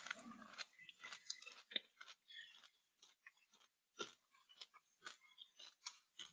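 Near silence with faint, irregular clicks and small rustles.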